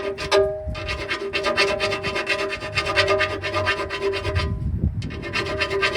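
Hand file rasping in quick strokes against the freshly bored 1-inch steel pin hole, touching up the bore after boring. The strokes pause briefly about three-quarters of the way through, then resume, with a faint steady hum underneath.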